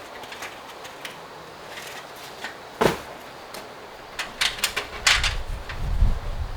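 Scattered knocks and clicks of hands-on repair work: one sharp knock about three seconds in, then a quick run of clicks and knocks near the end over a low rumble.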